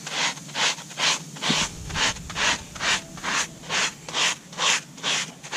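Coarse handled scrub pad rubbed back and forth on wet pavers, about two even scraping strokes a second, scouring out rust stains loosened by a muriatic acid mix.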